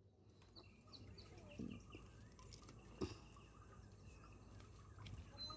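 Near silence outdoors, with faint, scattered bird chirps and one soft knock about three seconds in.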